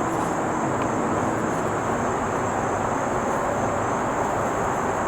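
Steady background noise with a constant high-pitched whine over it and no distinct knocks or clicks.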